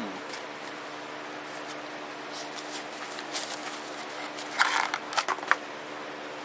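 Packaging being handled while a gaming mouse is unboxed: scattered rustles and clicks, with a louder burst of crinkling and clicking about four and a half seconds in.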